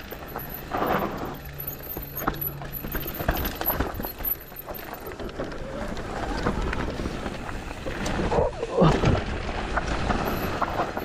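Mountain bike ridden fast down a dirt trail, with the rush of tyres and wind on the microphone and a run of rattles and knocks from the bike over rough ground.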